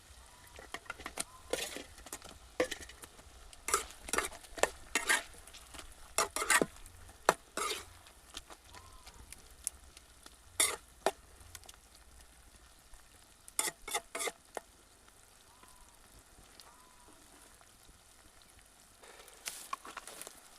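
Chicken frying in a pan, stirred in groups of short sizzling, scraping strokes with quieter frying between them.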